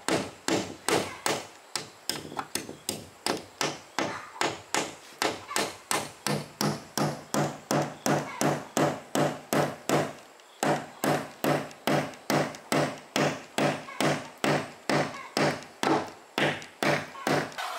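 Steady chopping blows on wood, about three a second, each a sharp knock with a dull thud beneath, with a brief pause about ten seconds in.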